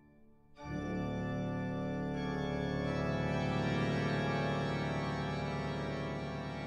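Background music: after a brief near-silent gap, held organ-like chords come in about half a second in and swell, then sustain.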